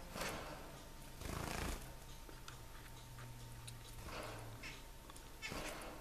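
Senegal parrot soaking a hard piece of bread in its plastic water dish: several short rustling, dabbling noises from the bill working the bread in the water, with a low steady hum in the middle.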